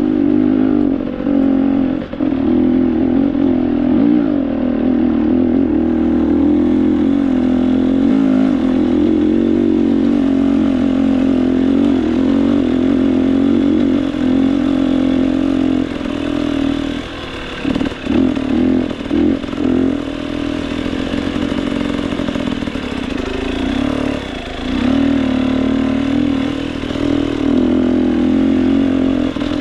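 Off-road motorcycle engine running under steady throttle, with a few quick throttle drops and pick-ups about two-thirds of the way through.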